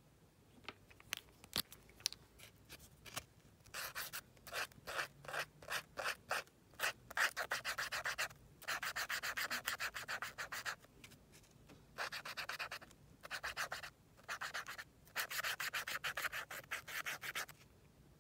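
Felt-tip marker scribbling on paper in runs of rapid back-and-forth scratchy strokes, with short pauses between runs. There are a few light ticks before the scribbling starts.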